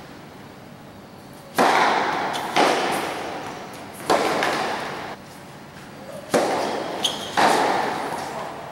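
Tennis rally: a tennis ball struck by racquets and bouncing on a hard court, about six sharp pops starting about a second and a half in, each ringing out in a long echo under the court's roof.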